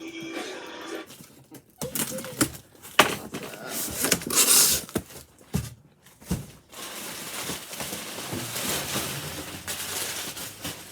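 A cardboard box being opened and unpacked by hand: rustling, crinkling and tearing of packaging, with scattered knocks and clunks and a longer tearing or rustling stretch about four seconds in.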